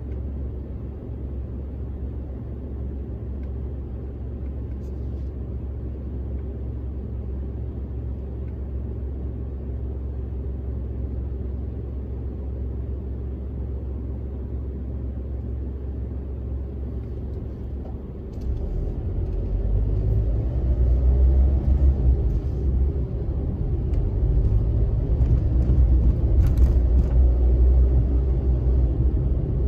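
Car road and engine noise heard from inside the cabin: a steady low rumble that grows louder about two-thirds of the way through, with a faintly rising engine note after that.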